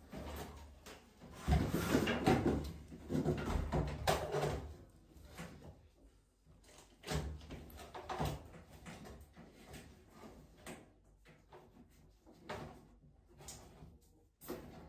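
Knocks and clatter of parts and tools being handled during washing-machine disassembly. The clatter is loudest and busiest in the first few seconds, with another knock about seven seconds in, then scattered lighter clicks.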